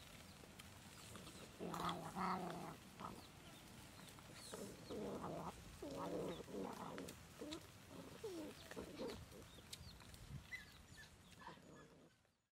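Puppies giving short calls, once about two seconds in and then in a run of calls from about five to nine seconds in. Faint birds chirp behind them, and the sound cuts off just before the end.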